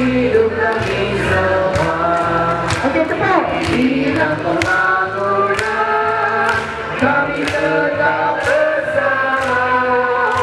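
A large group of adults singing a song together in chorus, with a steady beat behind them.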